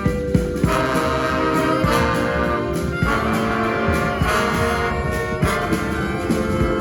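Brass band playing: horns hold chords that change about every second, over steady drum hits.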